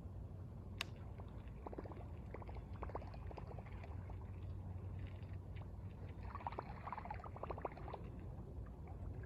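River water trickling and gurgling, in two spells, with a single sharp click about a second in.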